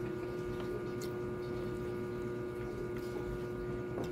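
Steady background hum with a few faint, scattered clicks.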